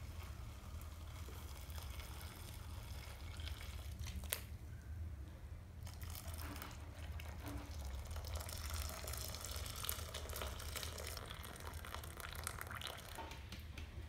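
Hot sea urchin cooking water poured from a pot through a plastic strainer into another pot, trickling and splashing, over a steady low hum.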